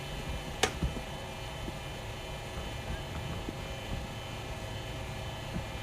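Steady mechanical hum of a cricket bowling machine running, with one sharp crack about two-thirds of a second in, followed by a dull thud.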